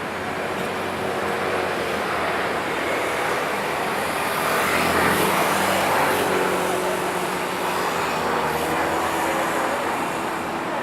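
Steady outdoor din of a large waiting crowd, growing a little louder around the middle.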